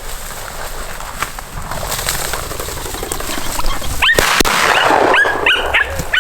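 Hunting dogs yipping and whining in a quick run of short, high cries, excited at a flushed bird, starting about four seconds in after a sharp crack.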